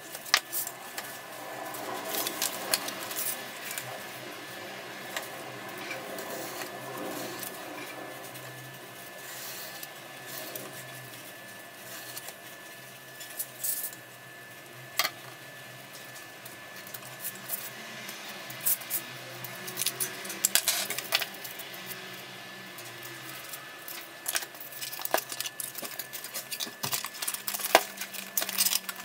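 Handling sounds of foam core pieces, a steel ruler and a pen on a cutting mat: scratching, light taps and scattered clicks, with a few sharper knocks.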